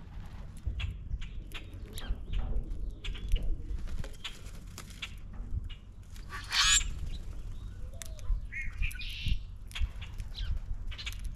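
Common grackles calling at a bird feeder: scattered harsh, grating calls, the loudest about two-thirds of the way through, over a run of short sharp clicks and taps.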